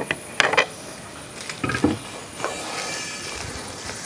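A brass uruli holding crisp-roasted thin poha is handled with a couple of knocks, then the dry flakes begin to slide and rustle as the pan is tipped over a steel scoop; the dry rustle shows the poha has been roasted crisp.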